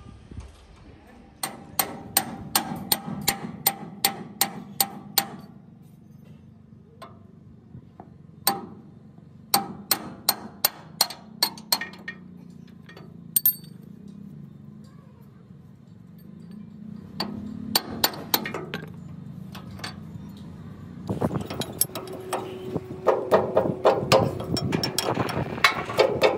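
Metal being hammered: runs of quick, sharp, ringing strikes, about three or four a second, in several bursts. The strikes grow denser and busier near the end, over a low steady hum.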